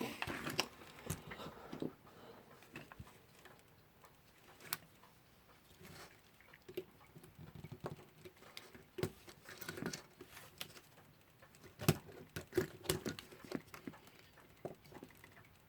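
Small metal clicks and short scrapes of hand tools working on the parts of a Westclox Lark alarm clock movement, with a patch of scraping at the start and a quick run of sharp clicks near the end.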